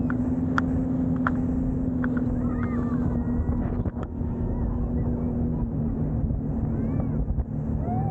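Boat engine running steadily with a low, even hum, with faint voices and a few sharp clicks over it.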